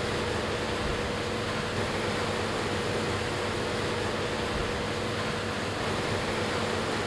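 New Holland CR9.90 combine harvester running steadily as it cuts wheat: an even mechanical rush with a faint constant whine.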